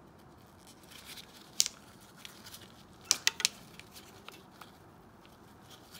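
Gloved hands pressing an oxygen sensor's wiring lead into plastic retaining clips under a car: small sharp clicks and rustles, one click about a second and a half in and a quick run of three near the middle.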